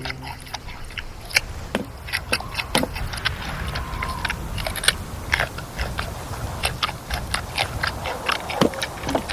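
Giant panda crunching and chewing a raw carrot: a steady, irregular run of crisp crunches, several a second.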